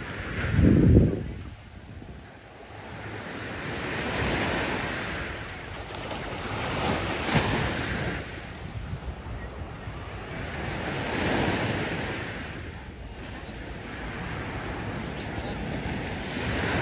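Small waves breaking on a sandy beach and washing up the shore, the wash swelling and fading every few seconds, with wind on the microphone. A brief loud low rumble comes about a second in.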